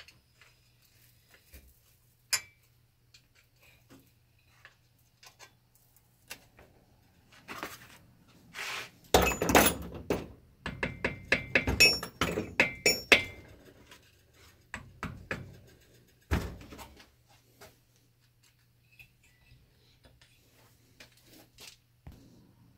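Hammer tapping a screwdriver against the lip of a stuck cover on a Kawasaki KV75 two-stroke engine case, to work the cover loose. A quick run of sharp metallic taps with ringing comes in the middle, then one heavier knock, among lighter clicks of tool handling.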